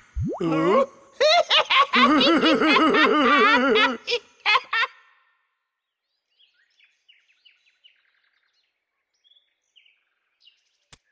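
A cartoon character's voice: a rising cry, then about three seconds of loud, wavering laughter. After that come faint, short bird chirps.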